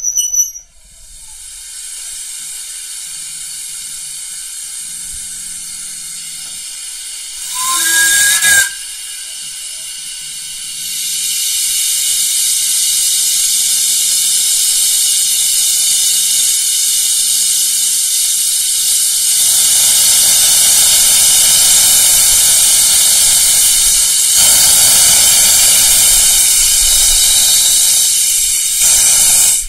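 Small saddle tank steam locomotive venting steam with a steady, loud hiss, with a short whistle about eight seconds in. The hiss grows louder from about eleven seconds, and a low rumble joins from about twenty seconds as the train moves off.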